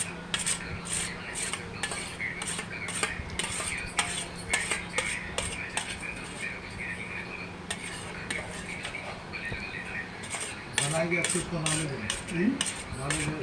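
Steel spoon scraping and clinking against a stainless steel plate in repeated short strokes as it gathers the last bits of food. A low voice comes in near the end.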